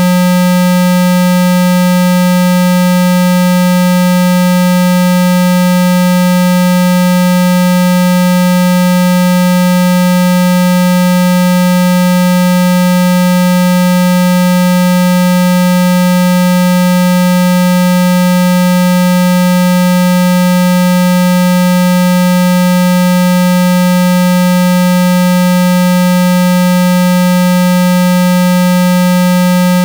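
Loud, steady synthesized 195 Hz tone, a low buzzing hum that does not change: a water-eject sound meant to vibrate water out of a phone's speaker.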